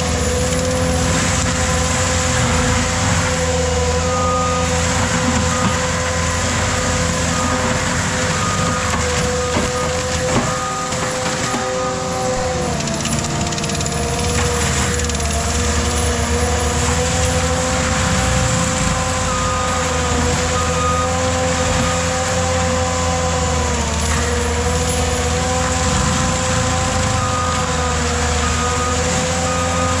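ASV RT-135 compact track loader running a forestry mulcher, the engine and spinning mulcher drum holding a steady high whine that sags in pitch twice as the head bites into brush. An intermittent high beeping, the machine's backup alarm, sounds at times.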